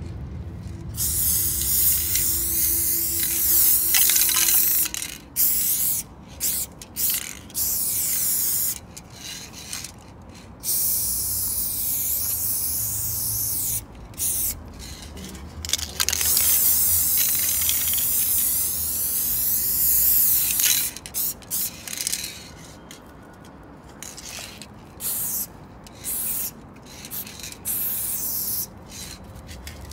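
Aerosol spray paint can sprayed onto a concrete wall, painting over graffiti. It goes in hissing bursts, several seconds long at first, then many short quick bursts near the end.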